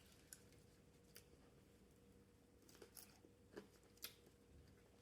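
Faint chewing with a few soft crunchy clicks spread through an otherwise near-quiet pause.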